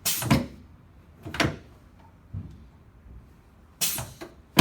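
Chiropractic drop table sections clunking down under adjustment thrusts: a series of sharp clunks, four or five of them spread over the few seconds.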